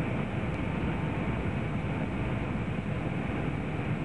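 Steady jet airliner cabin noise on approach: engine and airflow rumble heard from inside the cabin, heaviest in the low end, with a faint steady whine above it.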